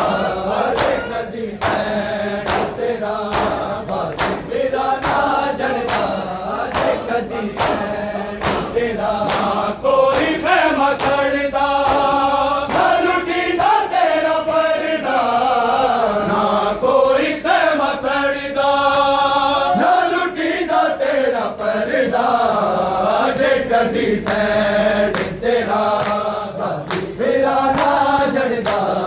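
A noha (Shia lament) sung by a group of men and taken up by a large crowd of male voices, with many hands striking bare chests in a steady beat (matam).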